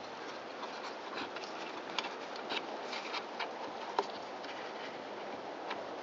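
Faint clicks and taps of small parts being fitted into a Stihl BG55 blower's handle and throttle trigger, a few distinct ticks over a steady background hiss.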